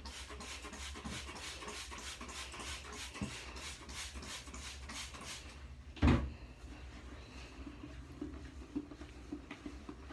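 Scrub sponge rubbing briskly around a foam-filled toilet bowl, about four quick strokes a second, stopping after about five seconds. A single loud thump about six seconds in.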